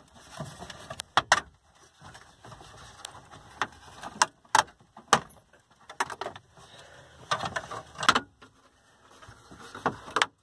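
Plastic center dash bezel of a 2004 Dodge Ram 2500 being pulled loose by hand: its retaining clips let go in a series of sharp snaps and clicks, with plastic scraping in between.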